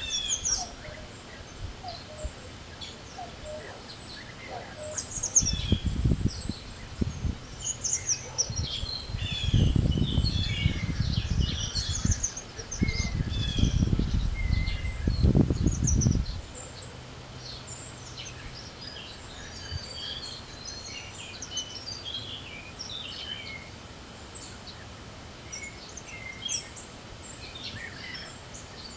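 Several songbirds singing and chirping, many short rapid calls and trills overlapping. Between about five and sixteen seconds in, gusts of wind buffet the microphone with a low rumble, three times, louder than the birds.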